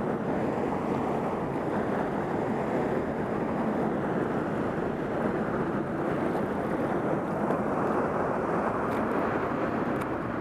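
Steady rushing noise of wind on the microphone and flowing river water, even and unbroken throughout.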